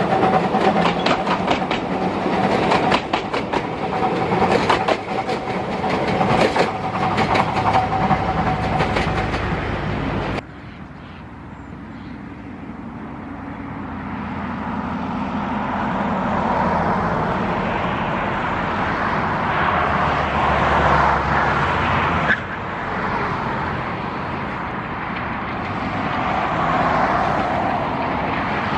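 Narrow-gauge steam train, locomotive 609.76 with passenger coaches. For the first ten seconds the coaches roll close past, with rapid clicking over the rail joints and a steady high-pitched tone. Then the sound cuts to the train running at a distance, its steam locomotive working and growing louder as it approaches.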